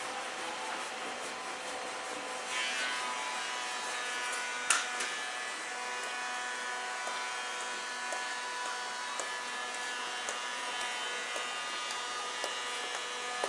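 Electric commuter train at a level crossing, a steady electric hum with a whine of many tones that sets in a few seconds in. One sharp click comes a little later, then faint clicks about once a second.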